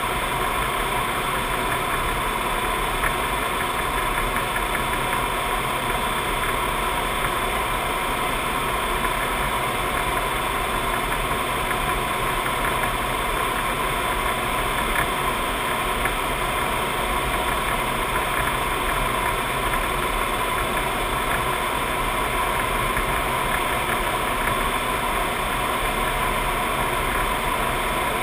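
Steady cockpit noise of a C-5 Galaxy in level cruise flight: a constant rush of airflow and engine hum with a faint steady whine, unchanging throughout.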